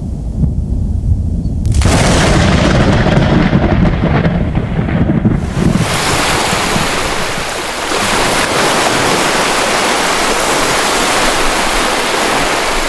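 Thunderstorm sound effect: a low rumble of thunder for about two seconds, then a steady, loud hiss of heavy rain.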